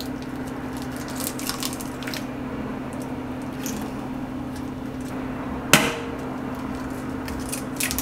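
An egg cracked one-handed against a mixing bowl: a few light taps, then one sharp crack about three-quarters of the way through, with a wet drip of egg into the bowl near the end. A steady low hum runs underneath.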